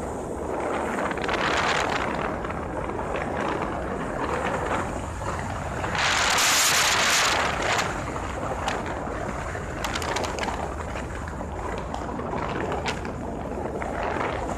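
Wind rushing over the microphone of a camera on a moving vehicle at road speed, over a steady low rumble, with scattered small knocks. A louder gust of hiss comes about six seconds in and lasts under two seconds.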